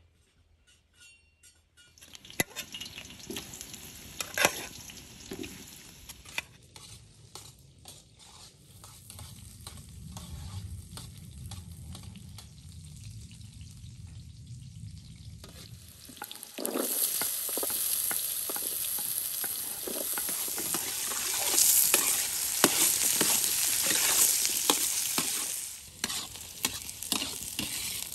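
Food sizzling in a hot pan while it is stirred, with frequent scraping and clicking strokes. The sizzle gets much louder a little past halfway and eases off near the end.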